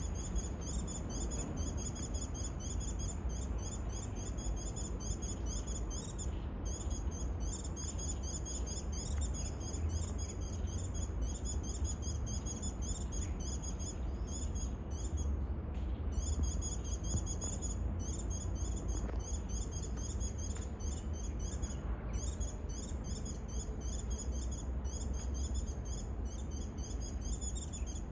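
A dense chorus of insects chirping in rapid, high-pitched pulses, with a few brief gaps, over a steady low rumble.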